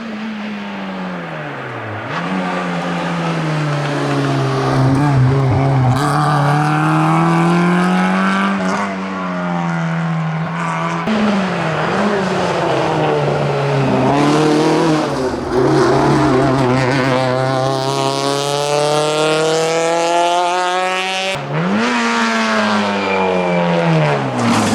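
Rally car engine driven hard on an asphalt stage, its pitch climbing and dropping with throttle and gear changes, ending in a long steady climb under acceleration. About 21 seconds in the sound cuts abruptly to another burst of engine.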